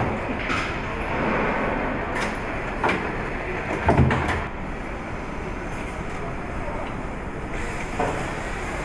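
Car assembly-line factory noise: a steady hum of machinery with scattered clanks and knocks, the loudest a heavy thump about four seconds in.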